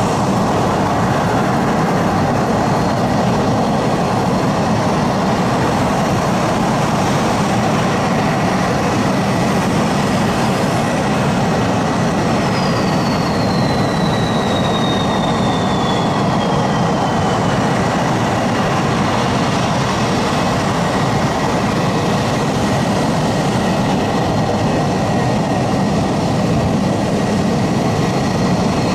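Military jet engine noise, a steady loud roar with a thin whine that falls in pitch about halfway through.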